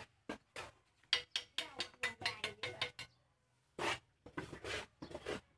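A quick run of sharp clinks and knocks, then a few more near the end: hollow clay bricks being handled and set down on a stack.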